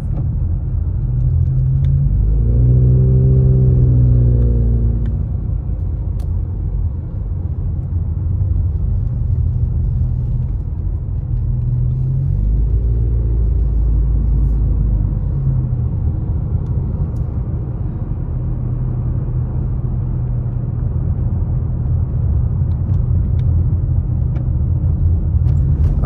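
Road noise inside a moving car: a steady low rumble of engine and tyres.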